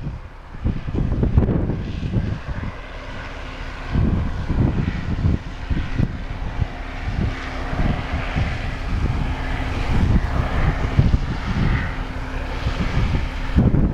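Case IH 2388 combine running steadily while harvesting corn, a machine drone with a steady hum that sets in a couple of seconds in, under gusty wind buffeting on the microphone.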